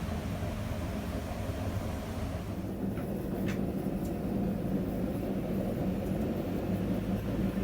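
Forge running with a steady low rumble and hum. About two and a half seconds in, the higher hiss drops away and the low hum comes forward, with a couple of faint clicks.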